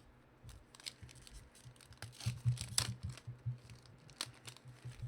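Trading card packs and cards being handled: a run of scratchy rustles, crinkles and tearing, loudest a little past halfway.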